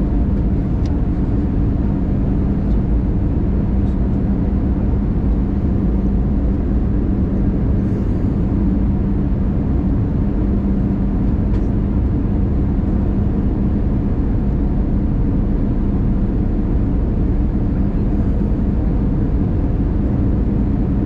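Steady cabin noise of an Airbus A320 on its descent, heard from a window seat over the wing: engine and airflow drone with a steady low hum, even throughout.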